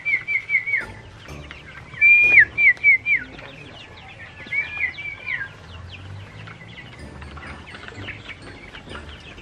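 A person whistling a feeding call in three runs of quick, short notes, each note dropping in pitch at its end, the loudest run about two seconds in. This is the signal that tells the chickens they are about to be fed. Young chickens peep throughout, and after about five and a half seconds only their peeping remains.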